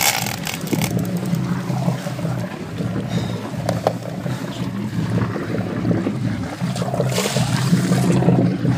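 Boat engine running steadily with a low rumble, with short rushes of hiss near the start and again about seven seconds in.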